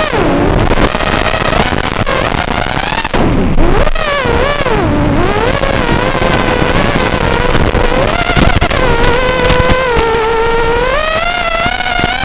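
5-inch FPV racing quadcopter's Racerstar BR2205 2300KV brushless motors and three-blade props whining, pitch following the throttle: it drops sharply at the start, dips twice about four to five seconds in, and climbs again near the end.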